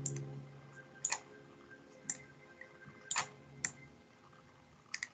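Computer mouse clicking: single sharp clicks at irregular gaps of about a second, six in all. Faint music fades out near the start.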